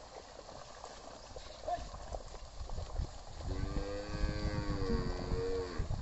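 A single long moo from cattle, lasting about two and a half seconds, starting a little past the middle and holding a fairly even pitch before dropping off at the end. Underneath runs a low sloshing of hooves and a wooden plough working through flooded paddy mud.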